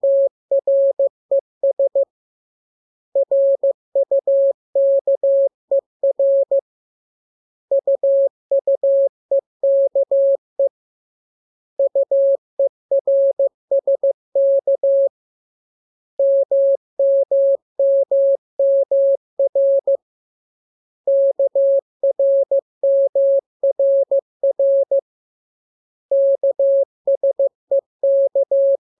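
Morse code (CW) practice tone: a single steady pitch keyed on and off in dots and dashes, sent as groups of characters about every four to five seconds with short pauses between. It is a receiving-practice radiogram of the lesson's letters K, M, U, R, E and S.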